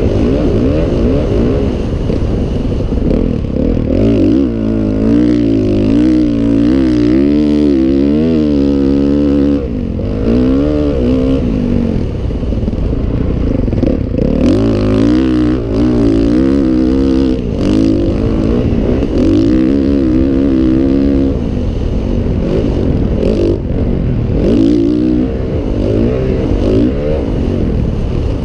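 Motocross dirt bike engine, heard from the rider's helmet, revving up and easing off over and over as it is ridden hard around a dirt track. There are brief dips in the engine note, one about ten seconds in.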